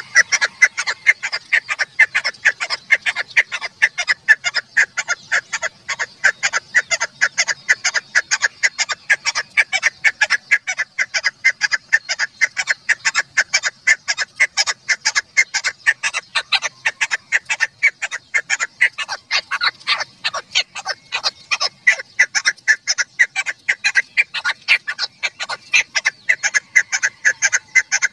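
Female chukar partridge calling: a rapid run of short notes, several a second, kept up without a pause. This is the call trappers use to lure chukars.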